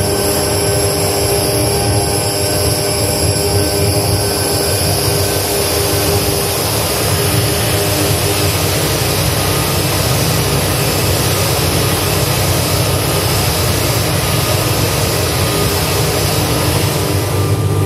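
Loud, dense electronic noise from an audio-visual installation's soundtrack: a steady wall of low rumble and high hiss, with a few held tones that fade out in the first several seconds.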